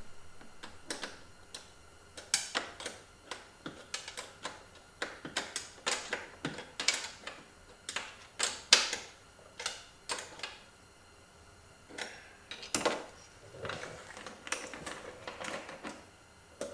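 Irregular clicks and clacks of hard parts and tools being handled while fitting a tunnel-bag mounting bracket, with a few short rattles and brief pauses.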